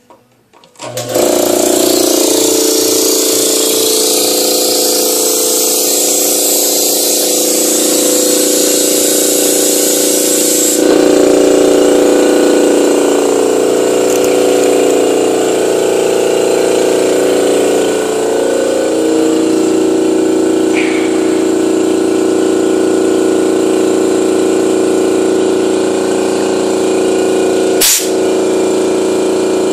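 Electric air compressor switching on about a second in and running steadily, a loud hum with a hiss that eases after about ten seconds. A short sharp burst sounds near the end.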